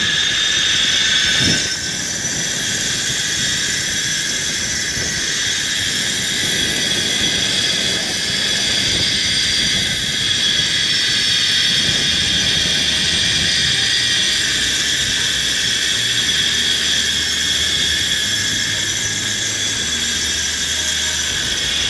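Zip-line trolley pulleys running along the steel cable, a steady high whirring whine.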